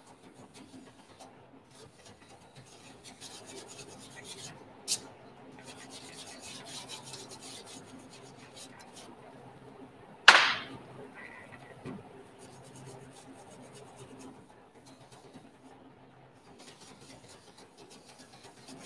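Hand scraping and rubbing inside the engine compartment of an A-12 jet-engine starter cart during restoration cleanup. A sharp click comes about five seconds in, and a loud knock about ten seconds in.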